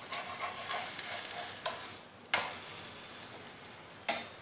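Thin batter crepe (soru chakli) sizzling in an oiled nonstick frying pan just after being flipped. It crackles more busily for the first couple of seconds, then settles. There are two sharp clicks of the metal spatula against the pan, about two seconds in and near the end.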